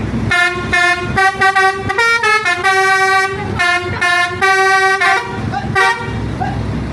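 Telolet bus horn, the multi-tone musical air horn of an Indonesian bus, playing a tune of quick short toots, then longer held notes at changing pitches. It stops about six seconds in.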